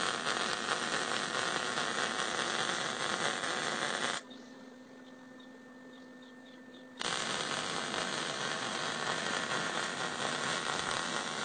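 MIG welding arc sizzling steadily, run at a turned-down heat and wire-speed setting for passes along the plate edges that close up a wide gap. The arc stops about four seconds in and strikes again about three seconds later for a second pass.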